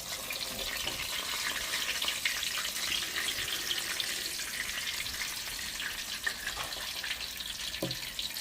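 Dried fish frying in hot oil in an electric pan: a steady sizzle with fine, dense crackling.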